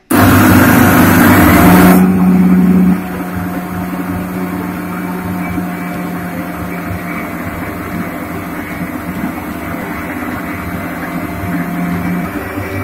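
Inalsa Fiesta mixer grinder running, grinding roasted lentils and whole spices in its steel jar into a dry powder. It starts suddenly and is loud and harsh for the first two seconds or so, then settles to a steadier, quieter running for the rest.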